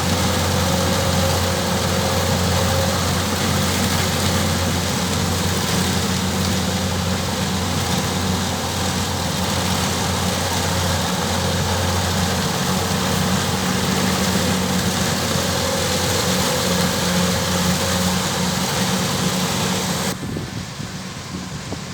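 Kubota DC105X combine harvester's diesel engine running at a steady speed. About 20 seconds in, the sound drops off sharply to a quieter steady hiss.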